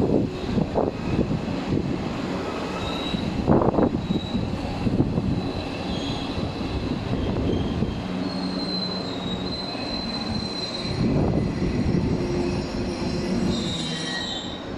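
Tobu 500 series Revaty electric express train moving: wheels knock over rail joints in the first few seconds. It then rolls slowly along the platform with a steady electric hum and high-pitched wheel squeal.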